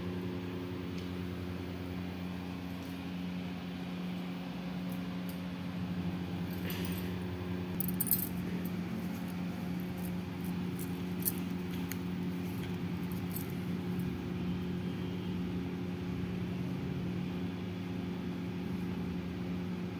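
A steady low hum throughout, with a few light clicks and clinks scattered through it.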